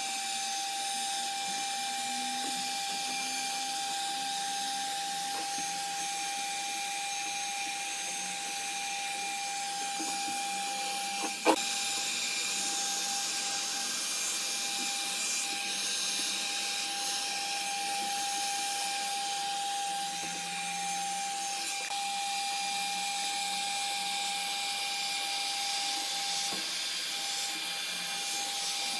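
Electric motor of a workshop machine running steadily with a constant whine, and one sharp knock about eleven and a half seconds in.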